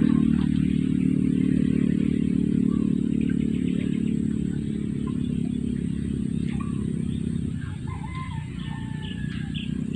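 A nearby engine running steadily with a low, even drone that eases off a little after about seven seconds. Faint short bird chirps come in during the second half.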